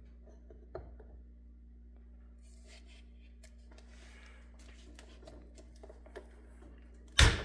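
Faint clicks and rustles of a PEX crimping tool being handled and fitted around a crimp ring, over a steady low hum. A single sharp knock near the end.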